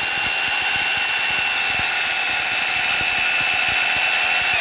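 iBell 900-watt rotary hammer drill in plain drilling mode, without hammer action, running steadily with a high whine as the bit grinds into a brick wall. It takes a lot of force, and the bit goes in only a little way.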